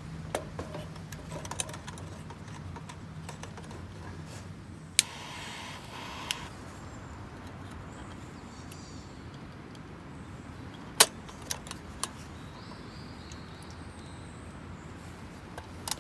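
Steady rain falling on a camp shelter, with a few sharp metal clinks and a short scrape about five seconds in.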